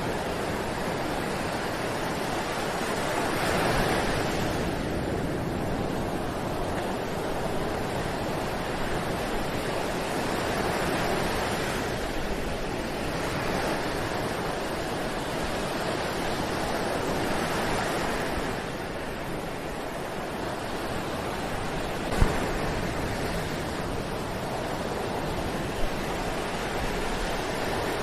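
Ocean surf: waves breaking and washing ashore, the wash swelling and easing every several seconds. Two short sharp clicks come near the end.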